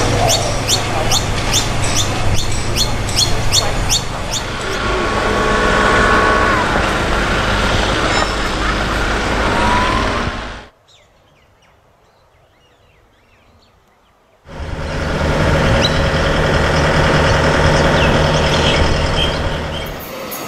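Construction machinery running steadily at a railway works site, with sharp high chirps or clicks about twice a second over the first few seconds. About halfway through the sound drops away to a faint hush for several seconds, then a steady machine drone returns.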